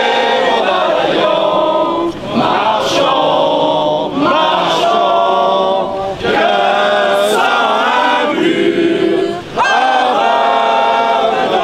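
A crowd of marchers singing together, many voices in long sung phrases of about two seconds each, with brief breaths between them.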